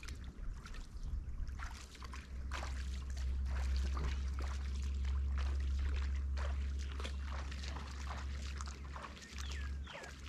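River water trickling and lapping over a steady low rumble, with scattered small clicks and a few short chirps.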